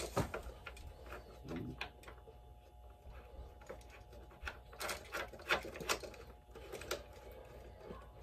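Faint, scattered clicks and light knocks of a Rectorseal RSH-50 surge protector being hand-tightened onto a metal electrical box.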